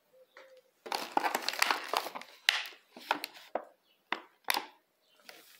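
Thin clear plastic clamshell punnet of strawberries crinkling and cracking as it is picked up and handled: a dense run of irregular crackles, then a few sharp separate clicks.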